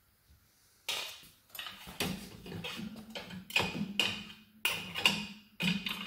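Saucepan lids and dishes clinking and knocking against the dishwasher's wire rack as they are fitted in place: a quick run of irregular sharp clatters with a short ringing tail, starting about a second in.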